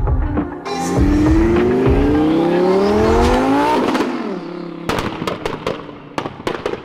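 Twin-turbo Lamborghini Huracán V10 accelerating hard, its note rising steadily for about three seconds. The note then falls away as the throttle is lifted, and a string of sharp exhaust pops and bangs follows near the end.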